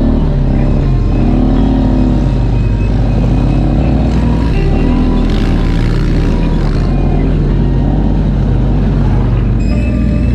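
Four-wheeler (ATV) engines running, their pitch rising and falling as they rev, with music mixed underneath.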